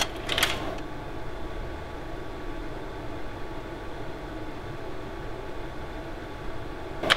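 Old slide projector running with a steady fan hum and hiss. Sharp clicks at the start and again near the end as the slide is pulled out and pushed back in.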